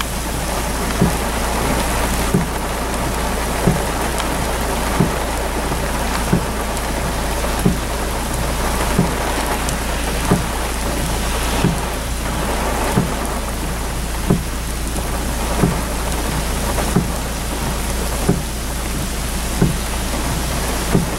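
Heavy rain beating down, heard from inside a car, over a steady low hum. A soft thump repeats about every second and a third.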